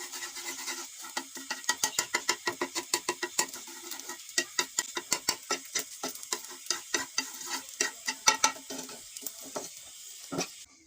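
A utensil stirring egg yolks in a bowl, clicking against the bowl about four to five times a second; it stops near the end with a final knock.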